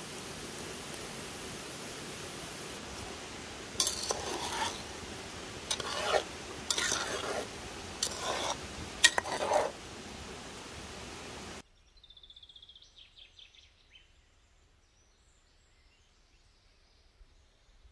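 Strawberry jam simmering in a metal pot over a wood fire, a steady hiss, with a slotted metal skimmer stirring and scraping in the pot in about five strokes between about four and ten seconds in. It then cuts off abruptly to a much quieter background with a few faint bird chirps.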